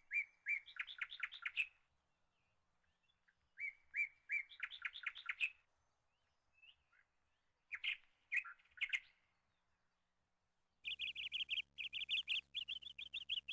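A small songbird singing: short phrases of rapid chirping notes every few seconds, becoming nearly continuous twittering from about eleven seconds in, with a faint steady hum joining it there.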